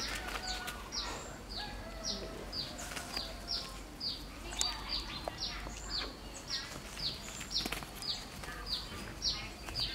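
A bird calling over and over outdoors: a short, high, downward-sliding chirp repeated about twice a second.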